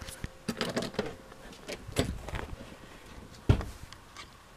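Rustling and small knocks from someone moving through a dark room with a camera in hand, with one sharp thump about three and a half seconds in.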